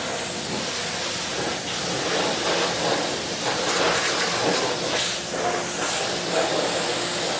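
Car-wash high-pressure rinse wand spraying a jet of water against a pickup's door panel and wheel well: a steady hiss with spatter, swelling and easing a little as the jet moves.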